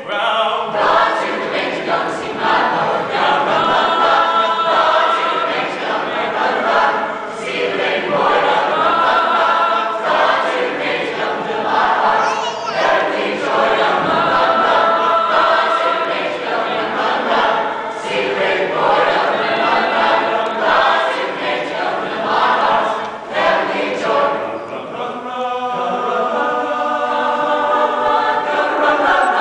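A mixed madrigal choir of young men and women singing in harmony without instruments, in phrases with brief dips between them.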